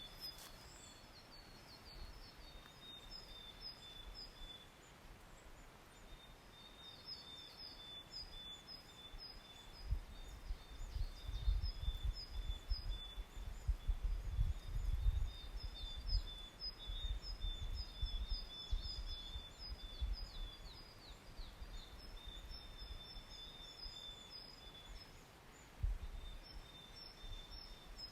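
Wild birds singing on a mountainside: short high chirps repeating throughout over a thin, steady high trill. Bursts of low rumble come and go around the middle and again near the end.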